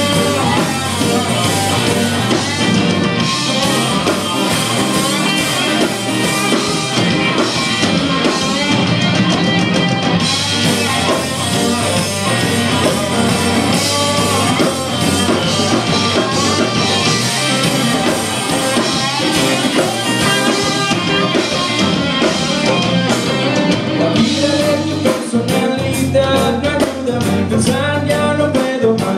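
A rock band playing live: electric guitar and drum kit, with a singing voice over them.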